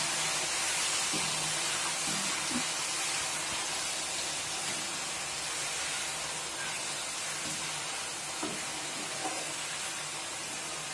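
Ginger-garlic paste sizzling in deep hot oil in a steel kadai, a steady hiss that eases off slightly, as it fries to cook off its raw smell. A few light taps of the steel skimmer stirring it against the pan.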